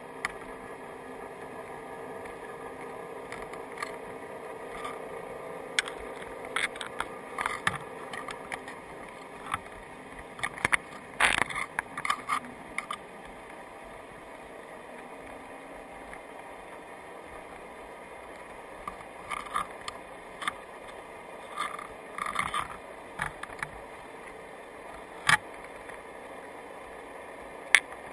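A crab clicking and scraping its legs and claws against the crab trap's frame and the camera housing, in irregular bursts of sharp ticks, over a steady underwater hum and hiss.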